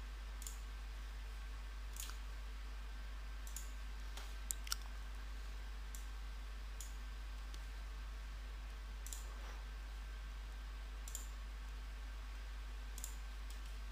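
Computer mouse clicking now and then: about a dozen single clicks spaced irregularly, two of them close together about four and a half seconds in, over a steady low hum.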